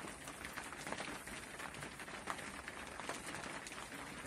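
Steady rain pattering, heard from inside a wooden hut: a dense patter of small drops over a constant hiss.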